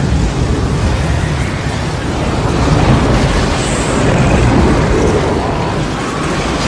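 Tornado roar sound effect: a loud, continuous rush of wind with a deep rumble, swelling and easing slightly a few times.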